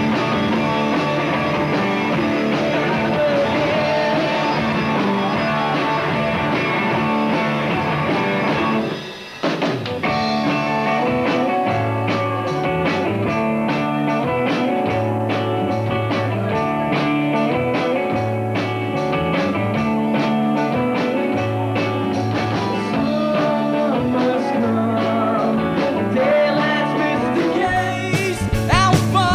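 Live rock band playing: electric guitar, electric bass and drum kit. The music drops out briefly about nine seconds in, then returns with a steady cymbal beat under a moving bass line, and singing comes in near the end.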